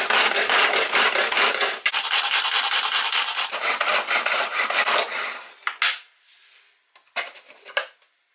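Manual pull-cord hand chopper worked with rapid repeated pulls, its blades spinning and rasping through dried sorrel (hibiscus) petals. It stops about five and a half seconds in, followed by a few short knocks and clatters as the chopper's lid is lifted off.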